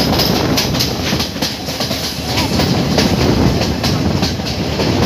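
Passenger train running along the track, heard at an open carriage door: a steady rumble of the carriages with a run of sharp wheel clicks over the rails.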